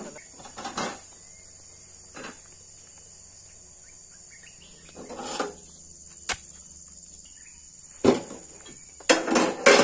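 A steady, high-pitched insect chorus buzzing throughout, broken by scattered short rustles and thumps, the loudest of them close together near the end.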